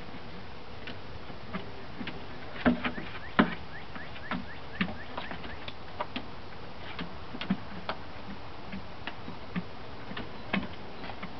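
Hens pecking food from a bowl: irregular sharp taps of beaks on the bowl, with a couple of louder strikes about three seconds in, over a steady background hiss.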